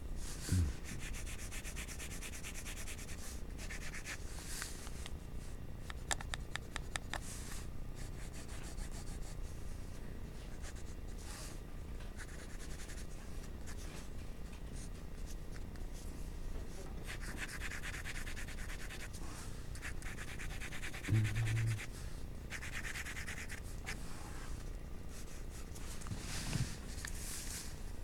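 Graphite pencil shading on paper: repeated bursts of scratchy back-and-forth strokes over a low steady hum, with a few brief low thumps, the loudest about three quarters of the way through.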